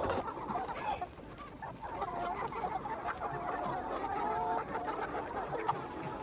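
Several chickens clucking, with short overlapping calls repeating throughout.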